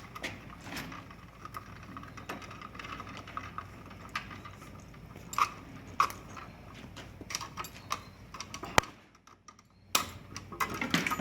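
Bare copper ground wires being handled and wrapped together at a metal switch box: scattered light metallic clicks and taps, with one sharp click about nine seconds in followed by a brief hush.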